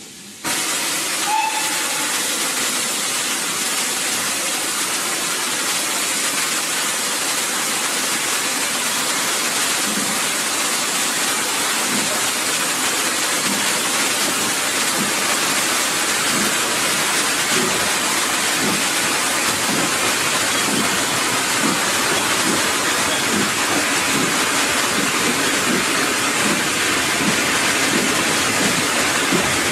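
Steam-hauled passenger train pulling away along the line: a steady hiss, with a faint regular beat underneath from about a third of the way in.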